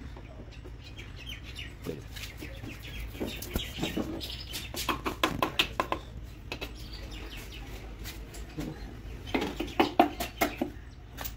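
Scattered light metallic clicks and clinks of engine parts and tools being handled while a piston and connecting rod are set up for fitting, with denser bursts of clicking twice.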